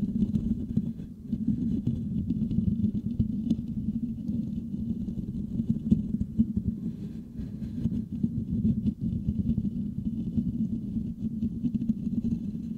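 Fingertips scratching and rubbing the metal mesh grille of a Blue Yeti microphone right at the capsule: a dense, unbroken, deep scratching texture.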